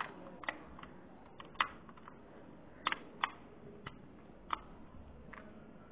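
Lego plates clicking and tapping as fingers press them onto a Lego baseplate: about nine small, sharp plastic clicks at irregular intervals.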